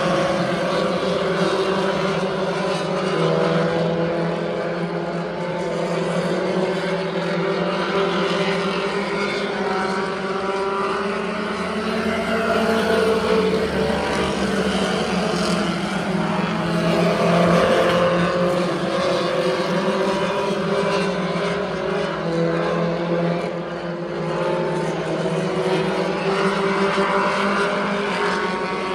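A field of pure stock race cars running laps, several engines at once, their pitches rising and falling as the cars accelerate and lift.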